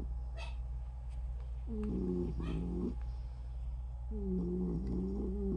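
Newborn French Bulldog puppies crying, two pitched wavering cries of about a second each, over a steady low hum.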